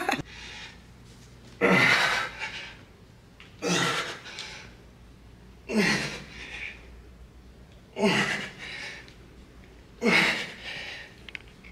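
A man's hard, forceful breaths out, five in all at a steady pace of about one every two seconds, each a sudden loud burst that trails off. It is the sound of him straining through each rep of a heavy dumbbell split squat at the point of exhaustion.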